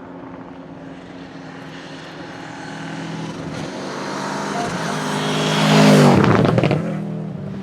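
Subaru Impreza 555 Group A rally car's turbocharged flat-four boxer engine approaching with a rumble, growing louder, then passing close about six seconds in with a sharp drop in pitch as it goes by and fades away.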